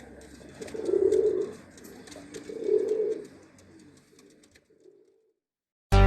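Red Iranian domestic pigeons cooing: two low coos a little under two seconds apart, then softer murmuring that fades away.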